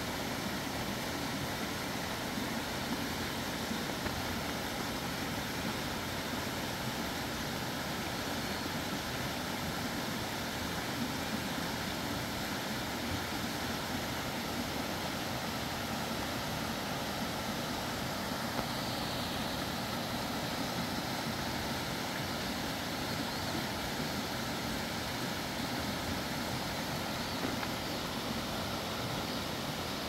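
Steady rushing of flowing water from a stream, an even, unbroken hiss that doesn't change.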